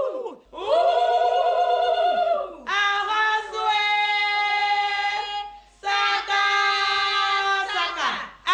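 Voices singing or chanting three long held phrases, each ending in a falling slide, with more than one pitch sounding at once in the middle phrase.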